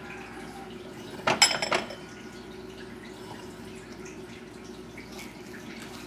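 Crystal stemmed glasses clinking as they are shifted about, a short clatter with a ringing tail about a second and a half in, over a steady low hum.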